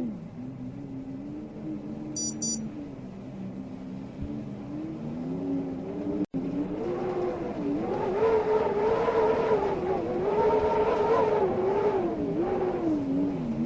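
Howling wind: a moaning tone that wavers up and down in pitch, swelling louder and higher about halfway through, with a split-second dropout just before the swell.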